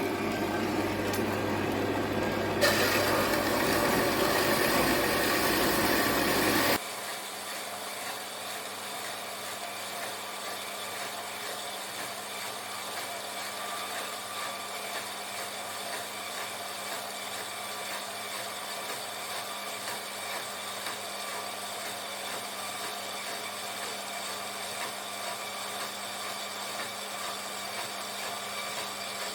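A workshop machine tool running while working steel bar stock. It is loud and harsh for about the first seven seconds, then drops suddenly to a steadier, quieter machine hum with a constant low tone.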